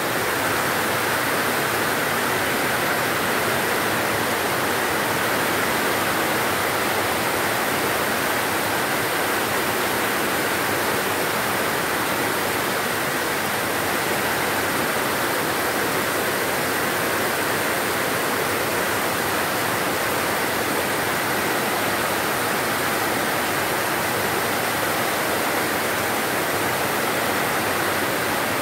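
Heavy tropical rain falling steadily in an unbroken downpour.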